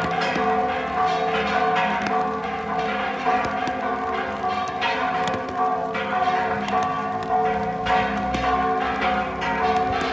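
Church bells ringing a festive repique: many rapid, overlapping strikes over sustained ringing tones, without a pause. The peal announces the parish's patronal feast.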